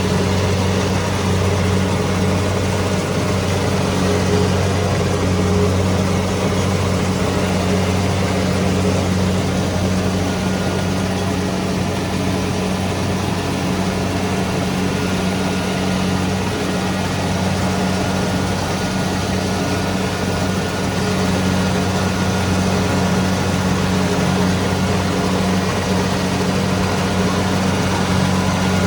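Kubota DC-70 Pro combine harvester's diesel engine running at a steady speed while harvesting rice, a constant low drone.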